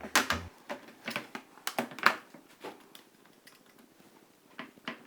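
Utility knife cutting through a thin plastic sheet: a quick run of sharp cracking clicks over the first three seconds, then two more clicks near the end.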